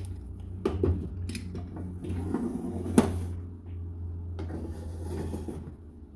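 A glass pot lid being handled and set down on a metal skillet, with a sharp clink about three seconds in and lighter knocks of cookware before it, over a steady low hum.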